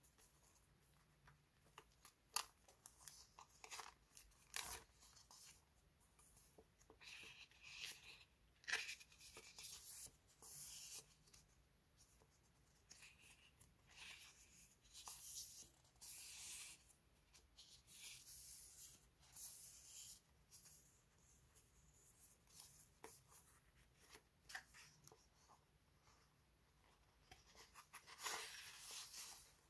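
Paper sticker sheets and cards handled by hand, with the crinkle of a clear plastic sleeve: intermittent soft rustling and crinkling broken by short sharp ticks of paper edges, and a longer sliding rustle near the end.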